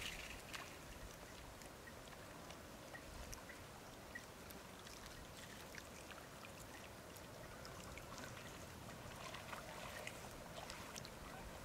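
Faint splashing and dripping water from Japanese macaques wading and foraging with their hands in a shallow pond: small irregular splashes over a quiet background hiss.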